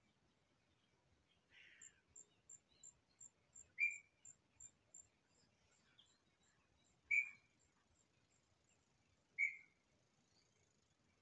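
Wild bird calls: a short, clear note repeated three times, two to three seconds apart, with a few fainter calls before it. Behind them runs a faint, fast, high ticking of an insect, about three ticks a second.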